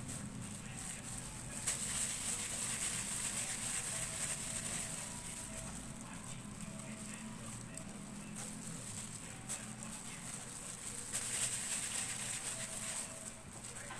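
Thin plastic food gloves crinkling and rustling as hands scoop and roll graham-cracker mixture into balls. The rustle gets louder for a few seconds from about two seconds in, and again near the end.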